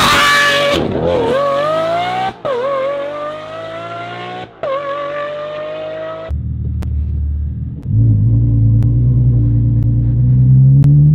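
Lamborghini V12 with a Gintani aftermarket exhaust accelerating hard. Its note climbs, then drops sharply at three upshifts, with a brief break at each of the last two. The clip then cuts to a deeper V12 exhaust note that holds steady, then rises slowly and grows louder as it builds revs.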